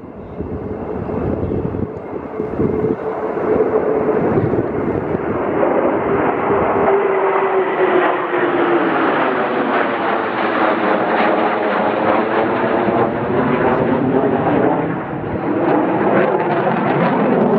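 F-15 fighter jet passing close by at high engine power: a loud jet rumble with a whine that falls slowly in pitch, and a sweeping, phasing quality as it goes by.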